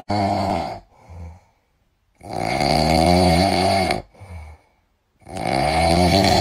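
A sleeping newborn kitten snoring: three long snores, each followed by a short, softer breath.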